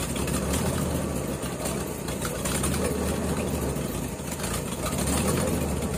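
Ford F-350 truck engine idling steadily, cold on its first run after a tune-up with new spark plugs and plug wires, with a water pump that the owner calls a little noisy.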